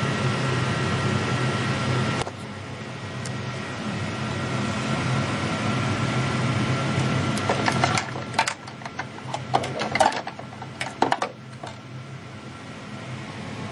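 Emco Turn 220 CNC lathe running with a steady mechanical hum and a thin steady tone, which drops in level about two seconds in. Later comes an irregular run of mechanical clicks and clatters lasting a few seconds.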